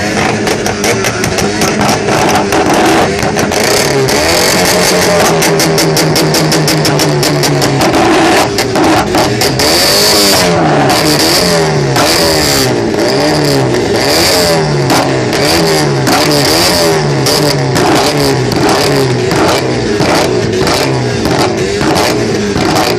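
A tuned car's engine being revved hard while its exhaust backfires in a rapid string of pops and bangs, with flames coming out of the tailpipe. The revs are held steady for a few seconds, then from about ten seconds in they are blipped up and down about once a second, each blip with a burst of loud cracks.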